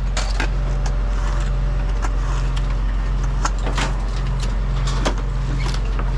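A vehicle engine running steadily with a constant low hum, with a few short knocks and clicks scattered through it.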